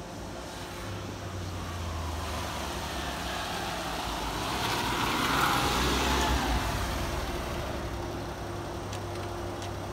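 1991 Honda Acty HA4 kei truck's small three-cylinder engine running as the truck drives past, growing louder to a peak about five to six seconds in, then fading as it pulls away.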